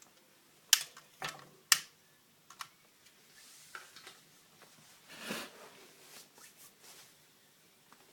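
A fire being lit in a fireplace: a few sharp clicks and knocks in the first three seconds, then a short rush of noise that swells and fades a little past halfway, followed by faint scattered crackles.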